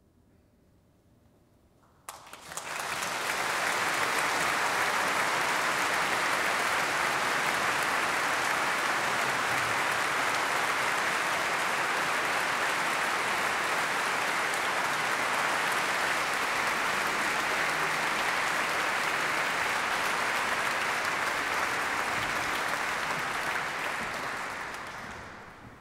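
Audience applauding. After a short hush, clapping breaks out about two seconds in, holds steady, and dies away near the end.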